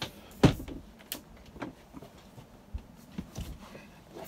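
A few short, irregular knocks and thumps. The loudest comes about half a second in, with weaker ones spread over the next three seconds.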